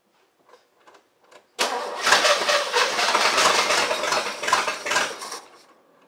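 El Camino's starter cranking the engine for about four seconds, starting suddenly and tapering off without the engine catching. It is a no-start, though the engine is getting fuel and spark.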